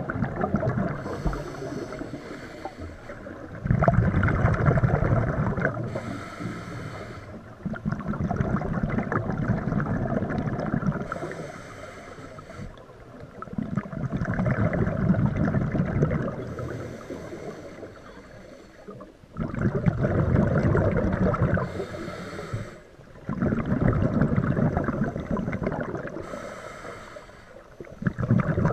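Scuba diver breathing through a regulator underwater: a short hiss on each inhale, then a loud rush of exhaust bubbles on each exhale. The cycle repeats steadily about every five seconds, some six breaths in all.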